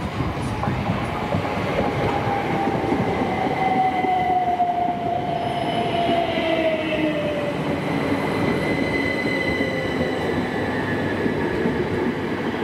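Electric multiple-unit passenger train running on the rails: a steady rumble with a whine that slowly falls in pitch over several seconds.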